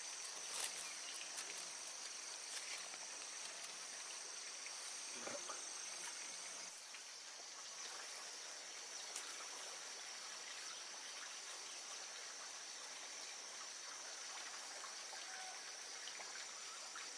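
Rural outdoor ambience with insects chirring steadily in a high, thin band that drops away about six or seven seconds in, over a faint even hiss with scattered small clicks and rustles.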